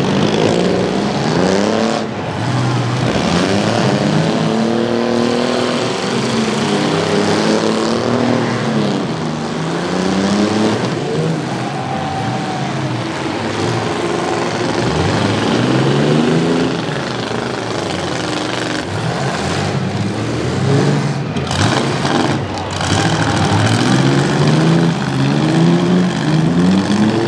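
Several half-ton pickup truck engines revving hard in a demolition derby, their pitch climbing and falling again and again as the trucks accelerate, back up and ram each other.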